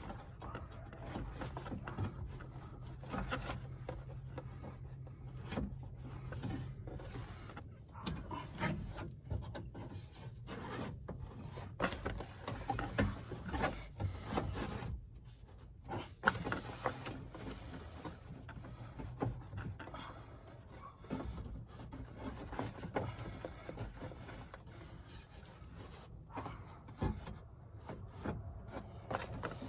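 Irregular rubbing and scraping with scattered light knocks and clicks, from hands working the glass and parts inside a car door.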